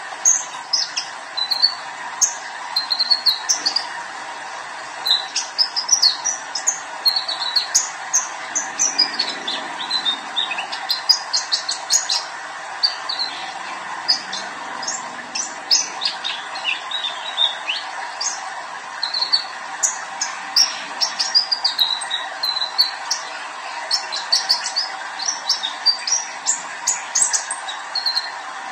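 A young male olive-backed sunbird singing busily: rapid, high chirps and short twittering trills in quick phrases with only brief gaps.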